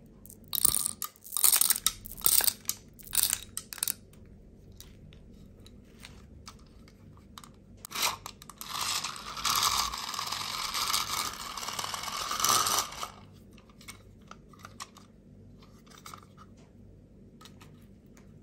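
Small candy-coated chocolates rattling and clicking against a clear plastic tube in several quick bursts. A small handheld toy fan then whirrs for about four seconds, followed by scattered light ticks of candies.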